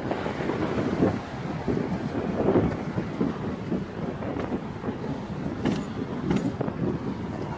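Wind buffeting a phone's microphone, an uneven low rumble.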